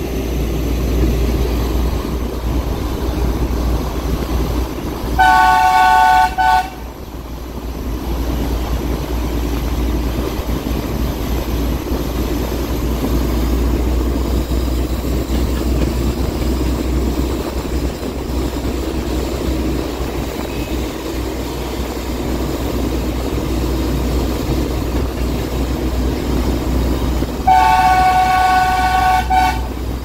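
Diesel-electric locomotive running with a steady low engine rumble, its horn sounding two blasts of about a second and a half to two seconds, about five seconds in and again near the end.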